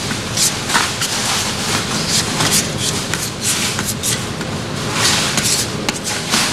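Plastic spreader scraping and smearing two-part body filler across a cardboard mixing board, in quick repeated back-and-forth strokes as the filler and hardener are mixed.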